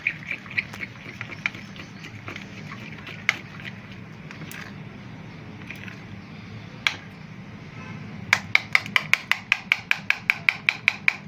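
A utensil tapping against the side of a bowl while cream, condensed milk and milk powder are whipped by hand. The clicks come in a few scattered strokes at first, then a fast even run of about six a second starting a little after eight seconds in.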